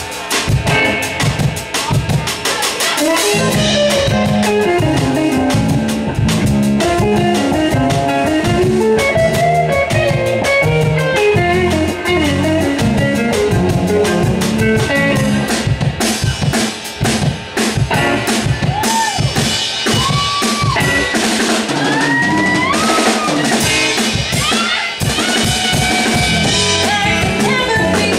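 Live rock band playing an instrumental section: an electric guitar carries the melody with bent, gliding notes over electric bass and a drum kit keeping a steady beat on kick, snare and rimshots.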